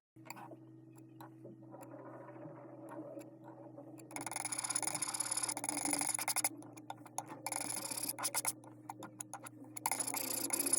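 Paint being stirred and mixed with quick scratchy rubbing strokes, getting louder in two spells, about four seconds in and again near the end, over a steady low hum.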